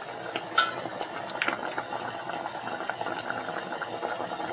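Sugar syrup at a rolling boil in an uncovered stainless steel pot, with rasgulla balls cooking in it: steady crackly bubbling, with a few light clicks in the first second and a half.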